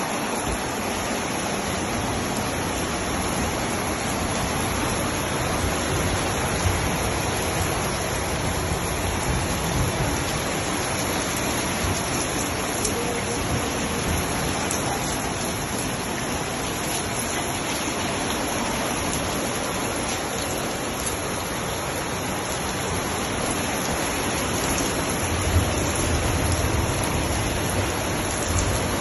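Steady, even rush of water, as of heavy rain or floodwater running, with a slightly stronger low rumble near the end.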